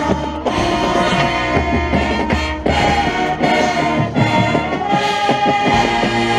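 High school marching band playing loud, full brass chords, with a high note held from about five seconds in.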